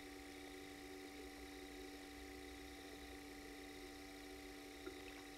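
Faint, steady electrical hum made of several constant tones, with one soft click near the end.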